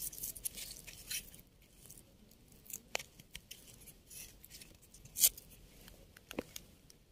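Soft scraping and a few sharp clicks of fingers rubbing soil off a freshly picked wild mushroom's stem, close to the microphone, the loudest click about five seconds in.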